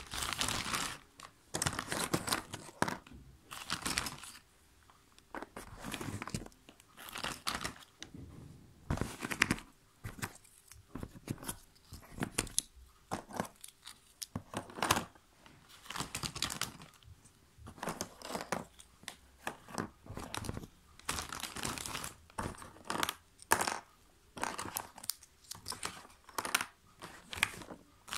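Thin clear plastic bag crinkling and rustling in irregular bursts as a child's hands rummage through the jigsaw puzzle pieces inside it.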